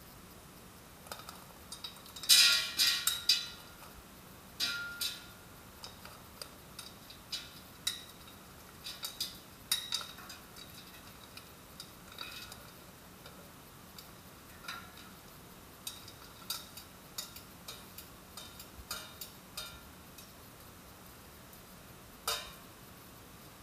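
Metal kitchen tongs and a stainless steel bowl clicking and clinking while raw potato strips are moved into an air fryer basket: scattered light taps, with the loudest cluster of clatter about two seconds in and a single sharper clink near the end.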